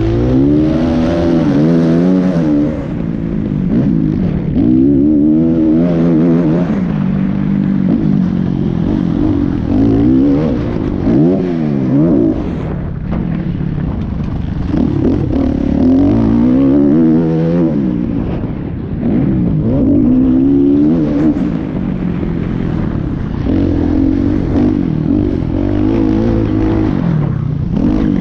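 Kawasaki KX450F four-stroke single-cylinder motocross engine under hard riding. It revs up and drops back again and again, about every two to three seconds, with the rise-and-fall of gear changes and rolling off the throttle.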